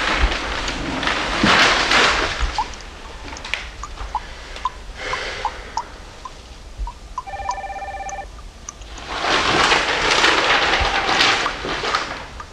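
Newspaper pages rustling as they are handled and turned, in loud bursts near the start and again towards the end. About seven seconds in, a telephone gives one short electronic ring.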